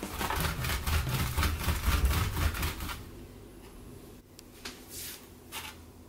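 Salted cucumbers rolled back and forth under the palms on a cutting board: a rapid gritty rasping of salt against the board for about three seconds, which works the salt into the skins. After that it turns quieter, with a few light knocks as the cucumbers are handled.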